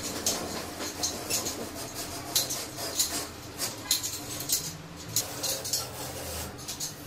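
A utility knife blade shaving and scraping the edge of a gypsum board (plasterboard) ceiling panel overhead, in short, irregular scratchy strokes.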